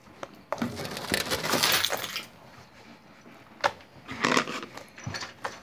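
Gold glitter slime squeezed and poked by fingers against a tabletop, crackling and popping for a couple of seconds, then a few sharper clicks and short crackles.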